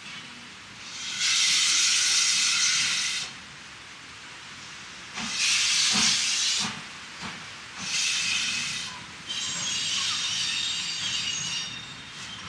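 WD Austerity 2-8-0 steam locomotive moving slowly with its cylinder drain cocks open, blowing off steam in four long hissing bursts, with a few soft chuffs about halfway through.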